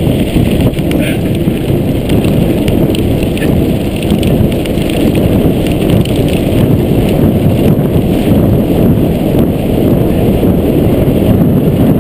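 Mountain bike rolling fast down a loose gravel track: tyres crunching and clattering over stones and the bike rattling, with a steady low rumble of wind buffeting the microphone throughout.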